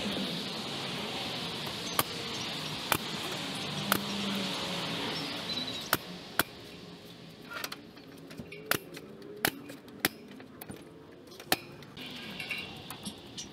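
Pneumatic nail gun firing about nine single shots at uneven intervals as trim is nailed up along the fascia, over a steady hiss in the first half.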